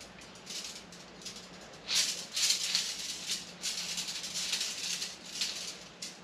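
3/16-inch brake line tube being pulled by hand through a roller pipe straightener, a scraping, rattling hiss that comes in several pulls.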